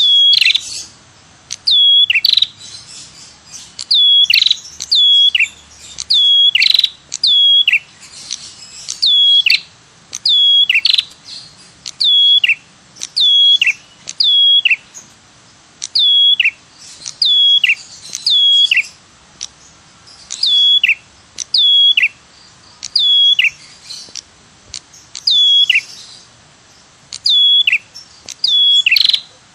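Ashy tailorbird (prenjak kepala merah / cemplik) calling over and over. It gives high 'tirr tiirrr' notes that each drop sharply in pitch, about one a second and often in pairs. This is a lure (pikat) call recording used to draw the bird in.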